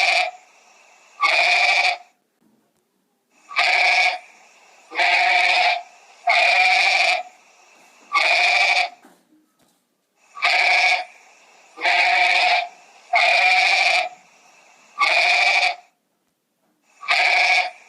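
An animal bleating over and over: about a dozen loud calls, each just under a second long, coming in groups of two or three with short pauses between.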